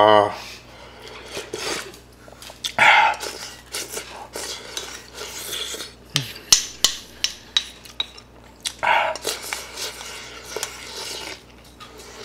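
Wooden spoon clicking and scraping against a large bowl as the last rice and broth are scooped out, with a couple of short slurps, about three seconds in and again near nine seconds.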